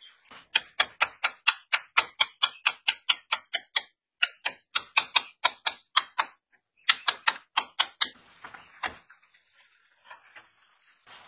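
Small hammer tapping rapidly on the end of a car alternator's rotor shaft, metal on metal: about five sharp strikes a second in three runs separated by short pauses, then a few lighter knocks near the end.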